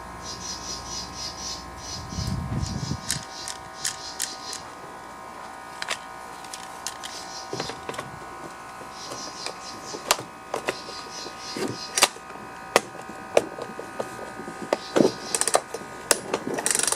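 Recoil starter of a Husqvarna 120 chainsaw worked by hand with its cover off: scattered plastic clicks and short ratcheting rasps as the starter pulley slides over the drive tabs instead of catching. A steady hum sits in the background.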